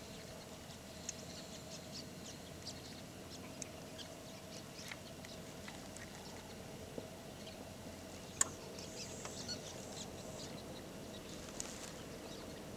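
Small birds chirping sporadically, with scattered clicks and one sharper click about eight seconds in, over a faint steady hum.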